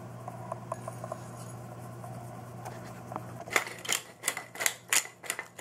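Pepper mill grinding in regular crunching strokes, about three a second, starting about three and a half seconds in; before that only a steady low hum and a few faint ticks.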